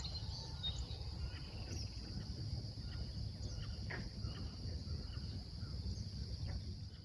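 Steady high-pitched chorus of crickets with a few scattered bird chirps, over a low rumble.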